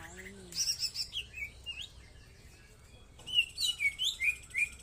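Cucak ijo (green leafbird) singing: a quick cluster of high chirps, then after a short pause a run of short downslurred whistled notes, about four a second.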